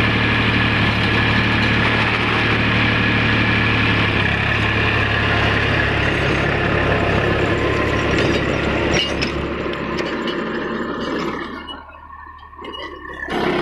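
Eicher 333 tractor's three-cylinder diesel engine running steadily while driving a rotavator. A few sharp clicks come about nine seconds in, then the engine drops away in loudness and rises again near the end.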